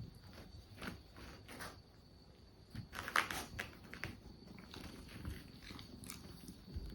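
A kitten and a dog playing together: scattered soft scuffles and taps, with a louder noisy burst about three seconds in.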